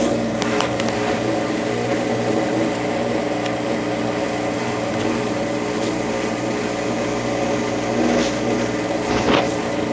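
Consul Facilite 10 kg washing machine running, a steady electric hum with a few light knocks and clicks scattered through it.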